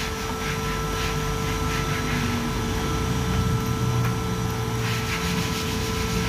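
Steady machine hum with a constant whine over a low rumble, and a few faint metallic ticks.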